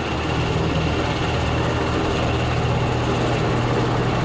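A steady, low engine-like mechanical drone.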